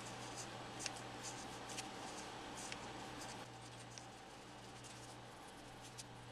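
Faint scratching of a cotton swab rubbing around the metal ring of a skateboard ball bearing as it is cleaned, with a few light clicks of the parts being handled, over a steady low hum.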